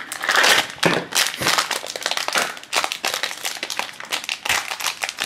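Foil blind-bag wrapper crinkling and crackling as fingers work it open, a dense run of small irregular crackles.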